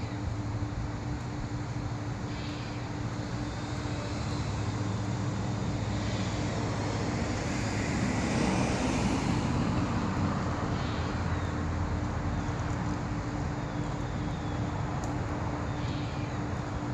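Steady road traffic noise, with a vehicle passing and swelling louder about halfway through.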